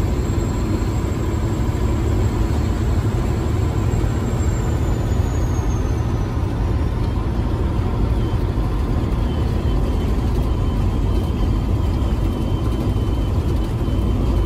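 Semi truck's diesel engine and road noise heard from inside the cab, a steady low drone while driving along the highway.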